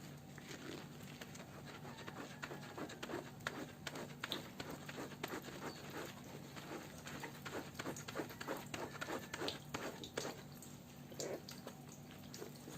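Many quick, irregular light clicks and crackles, densest in the middle, over a steady low hum.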